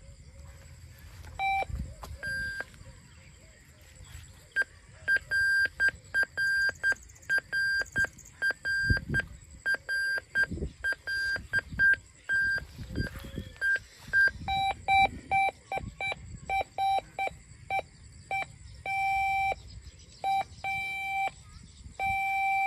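Gold Stinger X5 metal detector sounding target beeps, first a run of short higher-pitched beeps about twice a second, then lower-pitched beeps of varying length in the second half. The detector gives a different tone for each class of metal, such as gold, iron or silver.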